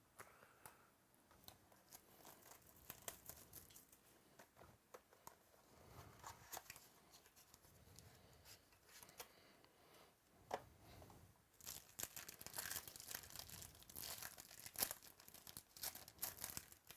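Faint tearing and crinkling of a wrapper as a sealed box of trading cards is opened by hand, with scattered crackles that grow denser near the end.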